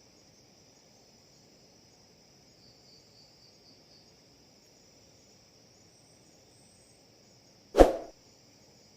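Faint, steady high-pitched insect chirring, like crickets, with one loud, sudden thump about eight seconds in.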